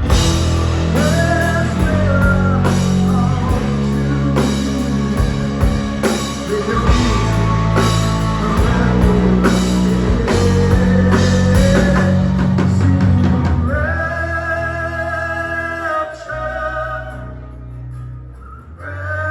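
Live rock band playing, with drum kit and electric guitar, dense and loud. About two-thirds of the way through the drums drop out, leaving long held notes that slowly fade.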